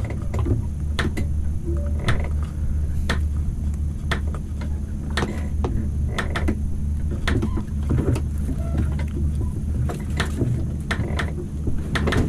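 Fishing boat's engine running with a steady low drone, with irregular sharp clicks and knocks over it.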